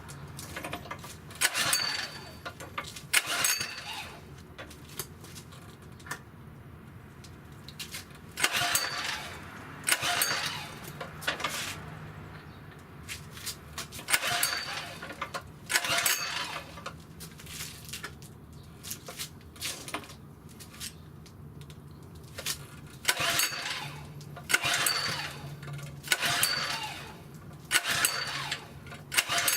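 Southland lawn edger being pull-started again and again: about a dozen short recoil-starter pulls, in twos and threes, the engine turning over but never catching. It won't start.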